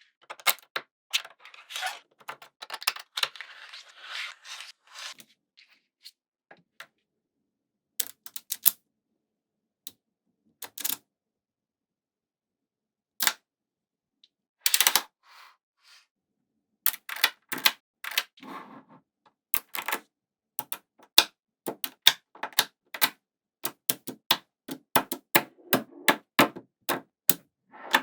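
Small magnetic balls clicking and snapping together as they are placed, in sharp irregular clicks. There is a brief rattling cluster in the first few seconds, a sparse stretch in the middle, and quick runs of clicks over the last ten seconds.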